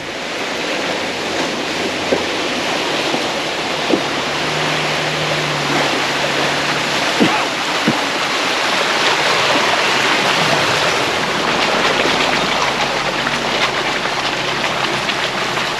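Steady rushing of creek water, with a few sharp knocks.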